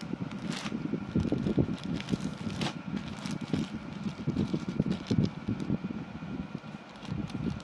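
A clear plastic garment bag crinkling and rubbing under the hands as it is held and turned, with a few sharper crackles, over a faint steady hum.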